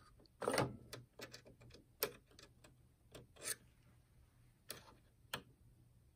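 A string of small clicks and taps at irregular intervals, from handling and probing the CD loading mechanism inside an opened home stereo.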